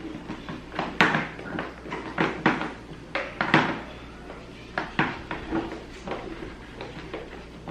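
Irregular sharp plastic clicks and knocks from a Philco stick vacuum being handled, its handheld dust-cup unit being fitted into and taken out of the stick body; the motor is not running.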